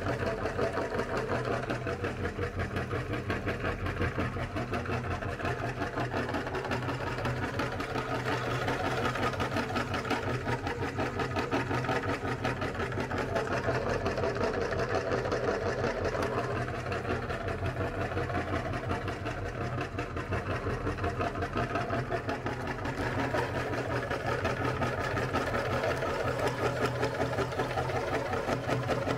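Electric meat grinder running steadily with a fast, even motor pulse, grinding ice cream.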